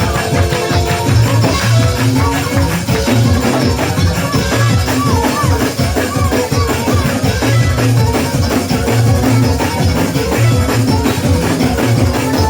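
Live church praise-break music with drums and tambourine playing a fast, steady beat.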